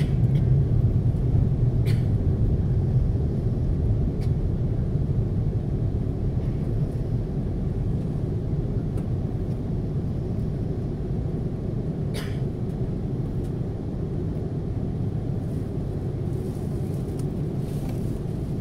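Cabin noise of a Hong Kong Airlines jet airliner taxiing: a steady low rumble of the engines and rolling gear, with a few faint clicks, the clearest about twelve seconds in.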